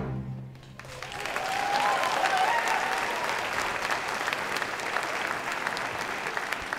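Audience applauding, swelling up about a second in and then going on steadily.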